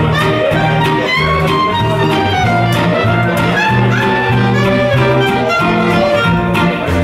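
Live band playing an instrumental passage with no singing: a fiddle and a saxophone carry melody lines over bass and guitar, with a steady beat.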